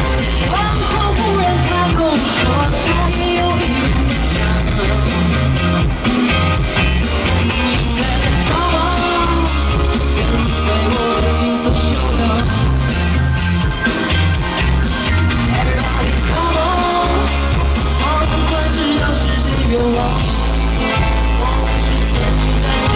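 Live pop-rock band playing through a concert PA, with a female lead voice singing over heavy bass, keyboards and a steady drum beat, recorded from the audience.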